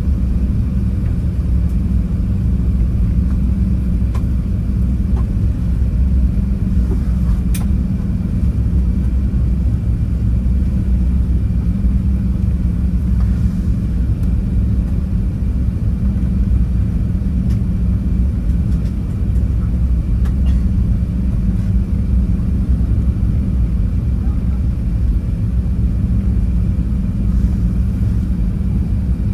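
Cabin noise inside an Airbus A380 climbing after takeoff: the steady deep rumble of the engines at climb power and the airflow over the fuselage, with a faint thin high tone.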